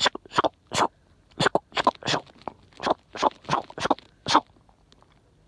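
Wood fire crackling: about a dozen sharp, irregular pops, stopping about four and a half seconds in.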